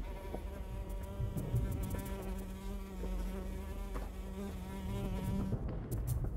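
A steady, even buzz over a low rumble; the buzz cuts off a little before the end, and a few sharp high clicks follow.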